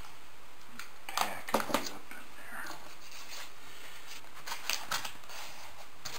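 Hand-work handling noise: a few short clicks and scrapes as pieces are pressed into place along the layout's foam backdrop. They come in two clusters, three sharp clicks about a second in and another group near the fifth second.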